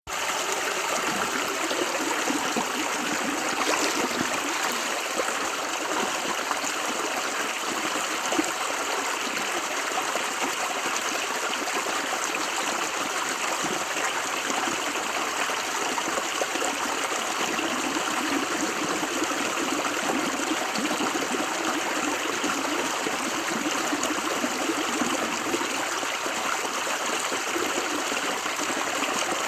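River water flowing steadily over rocks, a constant rushing and trickling with no breaks.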